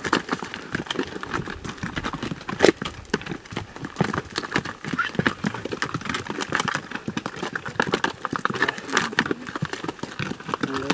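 Hooves of loaded pack mules clopping on a rocky dirt trail as they walk uphill, an uneven run of knocks with one louder knock a little under three seconds in.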